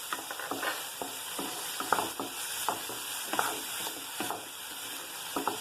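Soaked moong dal sizzling as it fries in hot oil in a pan, with a spatula repeatedly scraping and stirring it.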